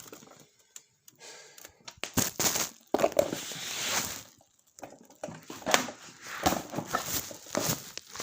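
Irregular rustling and crinkling of packing material, with scattered clicks and knocks, as a typewriter and its carrying case are handled and unwrapped.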